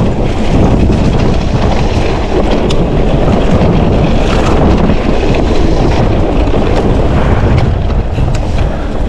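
Wind buffeting the camera microphone on an electric mountain bike riding fast downhill, a loud steady rush with tyres rolling over dirt and a few short clatters.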